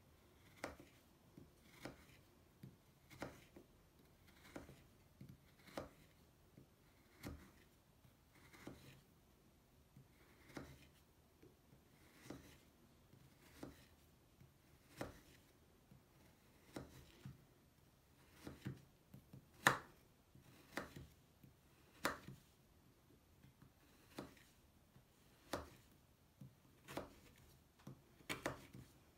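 A knife slicing a solid Lush bubble bar into thin, crumbly slices on a wooden board. Each slice is a short, sharp cut, coming about once every second and a bit, some twenty in all; two about two-thirds of the way through are the loudest.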